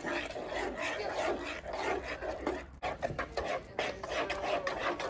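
Wire whisk beating thick cake batter in a mixing bowl: quick, irregular scraping and wet slapping strokes against the bowl.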